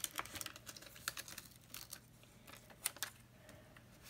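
A paper sticker being peeled from its backing sheet and pressed onto a planner page: faint, irregular paper crackles and small taps, with one sharper tick about three seconds in.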